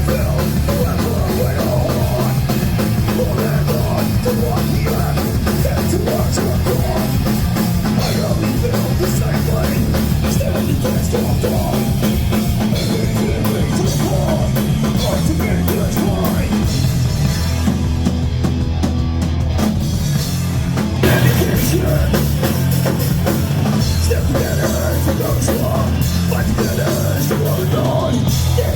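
Loud hardcore punk rock with a pounding drum kit and heavy distorted guitars and bass. About 18 seconds in the cymbals and treble drop out for a moment, then the full band comes back in harder at about 21 seconds.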